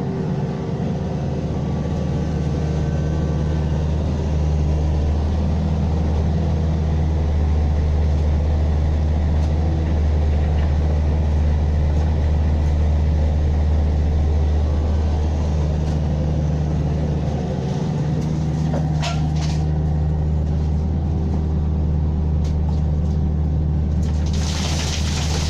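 Diesel engine of a compact earthmoving machine running steadily under work, with a few sharp knocks and a short burst of rattling noise near the end.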